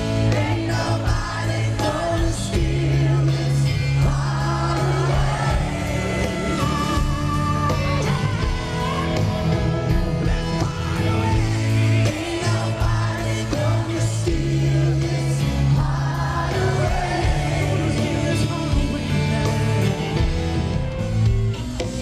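Live rock band playing, a man singing lead over electric guitar, keyboards and drums, heard from within the crowd.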